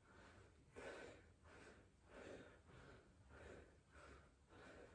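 A man breathing hard and rhythmically while exercising, about seven faint breaths in quick succession, out of breath from the effort.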